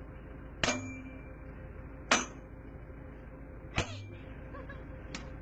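Four sharp knocks, each with a brief ring, spaced about a second and a half apart, over a steady low hum.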